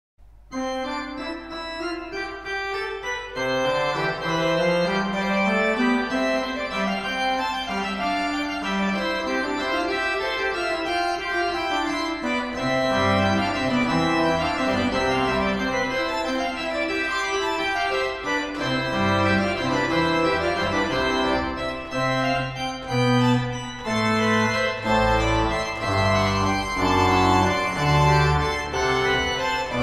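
Pipe organ playing a fast piece in several running voices. Deep pedal bass notes join about halfway through and grow heavier near the end.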